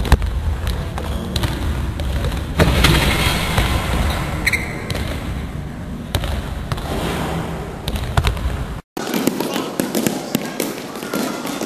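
Basketball bouncing on a hardwood gym floor, a string of sharp knocks over a low rumble of the camera being handled, with a louder clatter about two and a half seconds in. The sound cuts out for a moment near the end.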